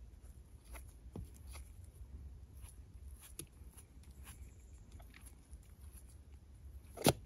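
Faint scattered ticks and rubbing of a nitrile-gloved finger working silicone sealant along a rubber door seal and headliner edge, with one sharper click just before the end.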